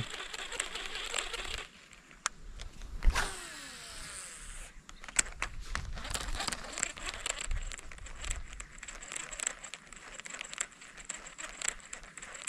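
Abu Garcia Black Max baitcasting reel in use. About three seconds in there is a sharp swish of a cast, and the spool whirs with a falling pitch as line pays out. After that come scattered small clicks and ticks from the reel and line during the retrieve.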